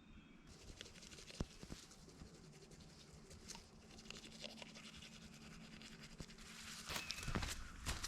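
Faint scratching and rustling with scattered ticks, then a hiker's footsteps growing louder near the end.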